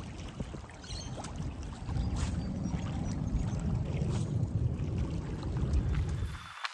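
Wind rumbling on the microphone, cutting off suddenly near the end.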